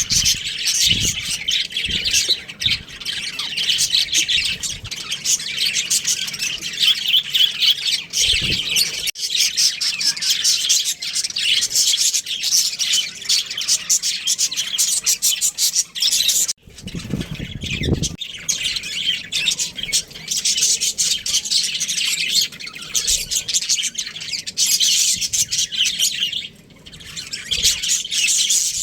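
Budgerigars chattering and chirping without a break, rapid high calls running into one another. A couple of low thuds sound about eight seconds in and again after a brief lull about seventeen seconds in.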